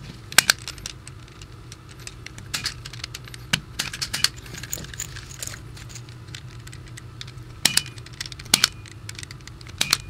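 110 punch-down tool clicking as it seats wires one by one into the slots of an RJ-45 keystone jack. Each click is the tool pushing a wire down onto the jack's metal teeth, which strip its insulation. About a dozen sharp clicks at irregular intervals, some in quick pairs.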